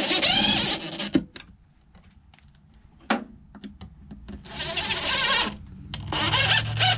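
DeWalt 20V cordless impact driver driving drywall screws into the plywood wall: it runs in a burst that stops about a second in, then two shorter bursts about four and a half and six seconds in, with a few sharp clicks between.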